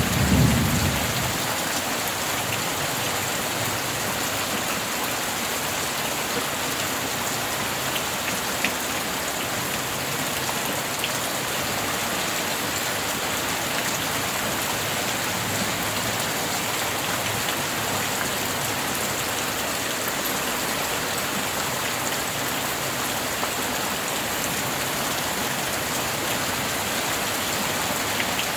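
Steady rain falling, an even hiss of drops. A low thunder rumble dies away in the first second or two.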